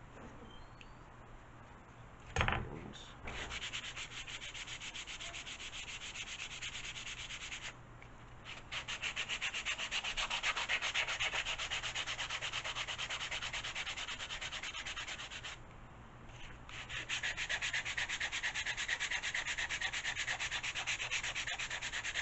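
Hand sanding block rubbing back and forth on a balsa model-airplane fuselage part, rounding off its edges: rapid, even strokes in three runs with two short pauses. A single knock comes just before the sanding starts.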